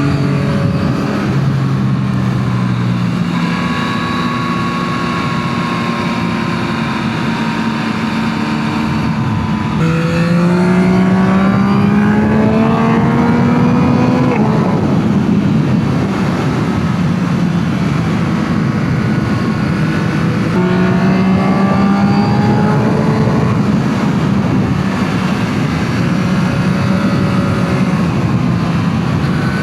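2025 Yamaha MT-09 SP's inline-three engine through its stock exhaust, under way. It holds steady revs, then pulls up through the revs from about ten seconds in and breaks off around fourteen seconds. From about twenty seconds it climbs again before settling.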